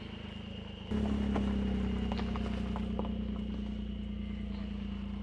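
Suzuki Jimny running at low speed on gravel: a steady engine hum that gets louder about a second in, with scattered crunches and ticks from the tyres on the stones.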